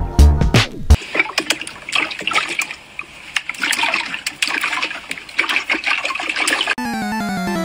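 Wet splashing, squelching and dribbling of water as hands handle an inflated pufferfish on a wet counter, irregular and crackly. A music beat ends about a second in, and a tune with falling notes cuts in near the end.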